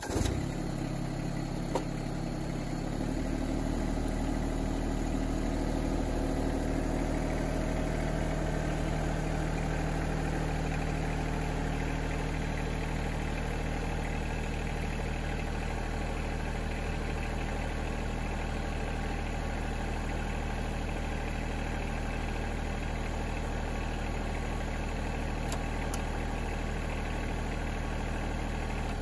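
Yanmar SA324 compact tractor's three-cylinder diesel engine starting up and idling, then revving up about three seconds in and running steadily.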